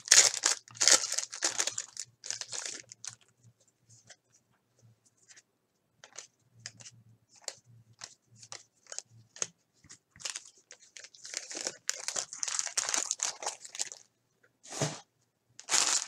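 Foil trading-card pack wrappers crinkling and tearing open, in bursts during the first few seconds and again after about eleven seconds, with scattered light clicks of cards being handled in between.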